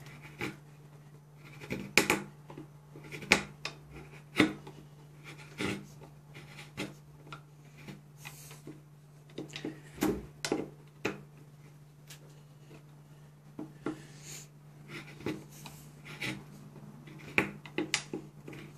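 A Mora Companion MG carbon-steel, scandi-ground knife shaving curls off the corner of a pine block. The short, sharp cuts come at an uneven pace of roughly one a second.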